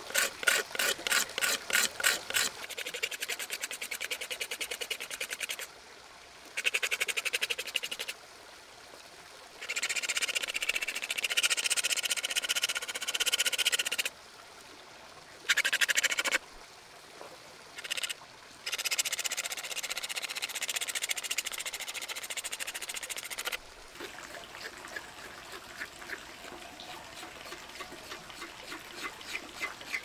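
Swiss Army knife blade scraping along the surface of a raw cow horn, following the fibres to smooth it. The rapid, rasping strokes come in runs broken by short pauses and grow fainter near the end.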